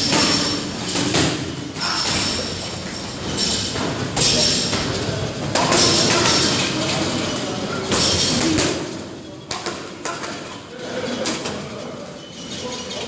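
Boxing gloves landing in sparring and on heavy bags: repeated irregular thuds, with people's voices in the background.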